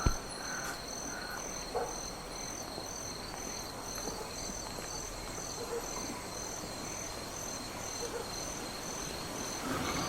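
Crickets chirping in a steady rhythm, about two chirps a second, over a low even hiss.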